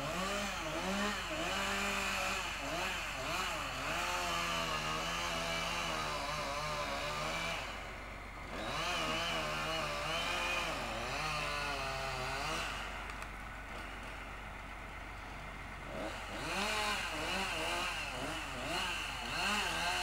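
Chainsaw engine revving up and down again and again as it cuts, with a short drop about eight seconds in and a few seconds of lower running past the middle.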